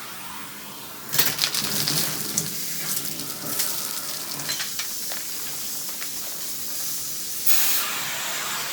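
Central vacuum running with a Wessel-Werk EBK360 powered nozzle. About a second in it starts a dense crackle and rattle of many small clicks: crunchy debris and grit being sucked up through the nozzle and hose.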